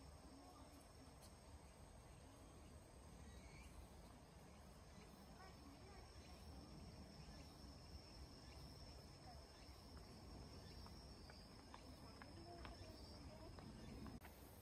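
Near silence with the faint, steady high-pitched trill of insects, ending shortly before the close.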